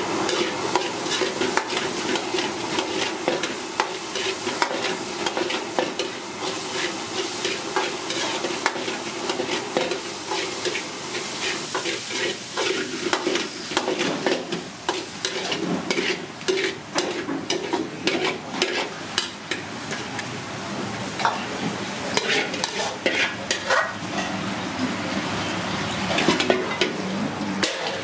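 Fried rice stir-frying in a steel wok: a metal wok ladle scrapes and clacks against the pan again and again over a steady sizzle.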